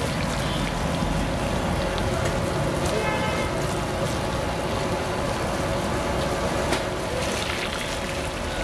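Hot oil sizzling steadily as vadas deep-fry, with a few sharp crackles.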